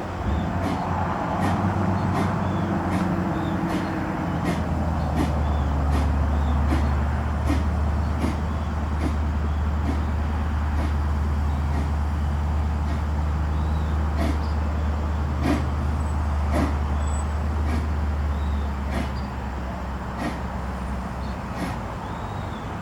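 Narrow-gauge train running slowly: a steady low rumble with regular sharp clicks, about one every half second to second, from the wheels passing over rail joints.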